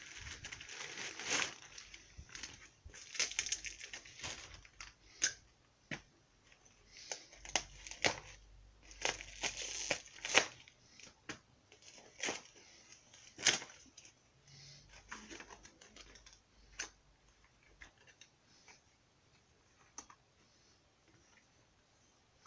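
Plastic courier mailer bag and its packing wrap being torn open and crinkled by hand: irregular rustling with sharp crackles, busiest in the first half and sparser toward the end.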